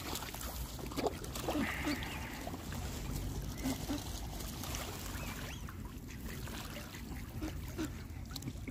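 Water splashing and lapping as black swans, coots and ducks jostle in the shallows, with a few soft, short waterbird calls over a low steady background noise.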